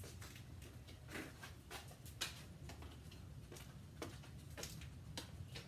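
Light, irregular clicks and taps, a dozen or so spread over several seconds, from a small dog's claws and paws on a hard concrete floor and the props it works around.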